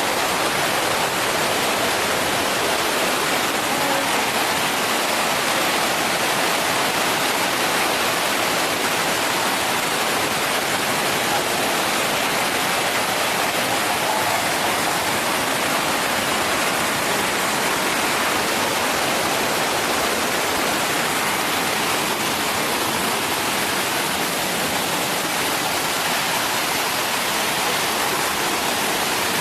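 Düden Waterfall: a loud, steady rush of falling water that does not change.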